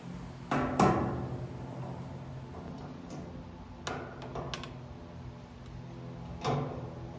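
Steel jerry can and its flexible pour spout being handled: a handful of sharp metallic clanks and knocks as the spout is fitted onto the can's mouth, the loudest about half a second in, with smaller ones near the middle and towards the end, over a steady low hum.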